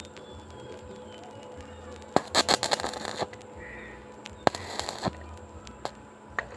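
Electric arc welding: two short bursts of sputtering crackle, each about a second or less, the first about two seconds in and the second near the middle, with a few stray clicks. A steady low hum runs underneath.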